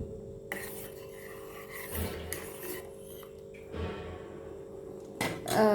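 A spoon scraping and knocking against a cooking pot as an herbal decoction is stirred, with a steady hum underneath.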